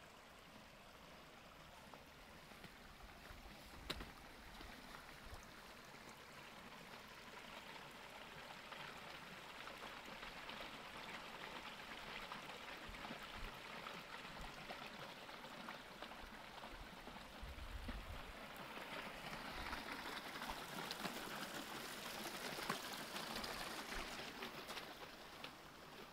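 Muddy rainwater runoff running and trickling down an eroded channel across the trail, a faint steady rush that grows louder through the middle and eases near the end. The flow comes from heavy rain flooding over the trail.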